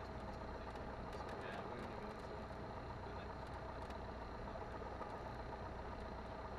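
Cessna 172N's four-cylinder Lycoming engine running steadily at low power as the aircraft rolls slowly along the runway, a constant drone heard from the cockpit.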